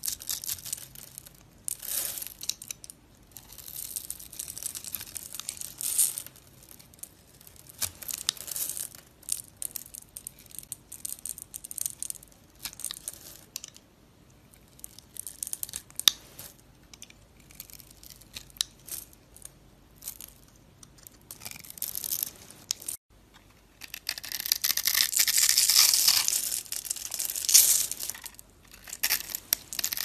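Knife blade cutting through scored bar soap, small soap cubes breaking off with crisp, crunchy crackling in irregular bursts. A longer, louder run of dense crunching comes near the end.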